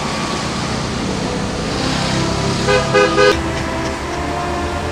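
Steady road traffic noise, with a car horn giving three quick toots about three seconds in.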